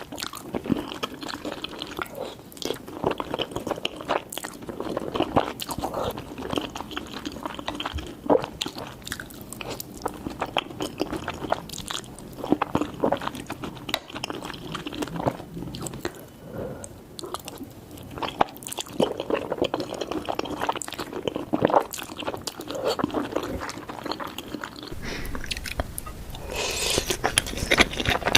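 Close-miked eating of spaghetti: steady chewing and biting with many small sharp mouth clicks, getting busier and louder near the end.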